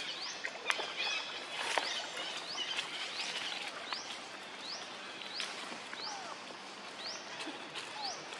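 Forest ambience: a small creature repeats a short rising chirp about twice a second over a steady background hiss. A few sharp clicks or snaps come in the first two seconds.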